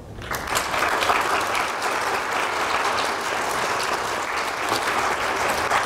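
Audience applauding, many people clapping at once; the clapping swells up within the first half second and then holds steady.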